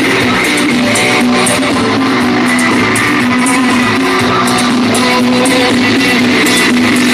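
A rock band playing live, in an instrumental passage led by electric guitar over bass guitar.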